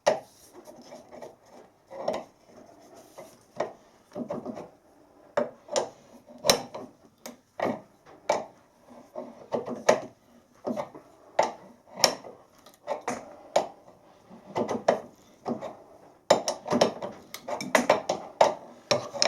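Threading die in a tailstock die holder being turned by hand onto a high-tensile steel stud on a lathe, cutting a thread: a run of irregular short clicks and scrapes, about one or two a second.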